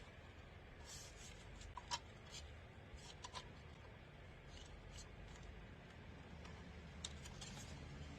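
Faint handling noises of a mini evaporative air cooler and its charging cable being turned over: scattered light clicks and taps, the sharpest about two seconds in, over a low room hum.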